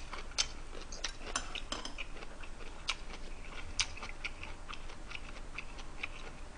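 A person chewing a mouthful of food: a string of irregular short clicks and smacks from the mouth, several a second, with now and then the light clink of a metal spoon.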